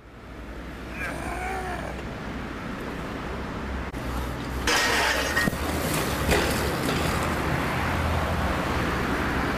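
BMX bike riding on concrete: a louder rush of tyre noise starts about halfway, with a few sharp knocks from the bike. A steady low rumble runs underneath, and a drawn-out call is heard about a second in.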